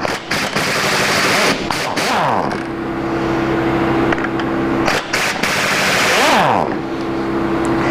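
Pneumatic impact wrench hammering in two long runs, each spinning up and down, loosening the connecting rod cap nuts on a Ford 351 Windsor V8.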